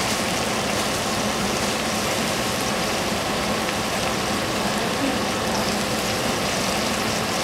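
Steady rushing noise with a faint low hum underneath, unchanging throughout.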